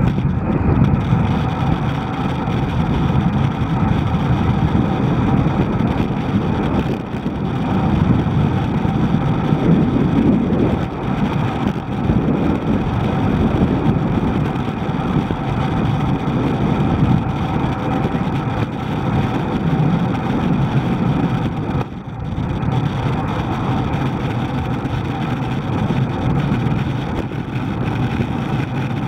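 Wind rushing and buffeting over the microphone of a camera on a moving bicycle, a steady low rumble that swells and eases, mixed with passing car traffic.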